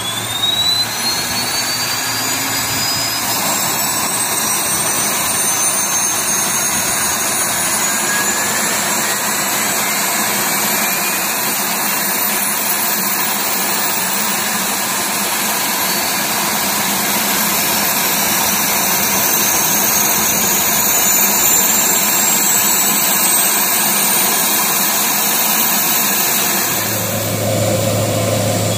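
Turboprop engine of a PTDI N219, a Pratt & Whitney Canada PT6A, spooling up during start: a loud turbine whine that rises steadily in pitch, several high tones climbing together. Near the end a lower hum joins in.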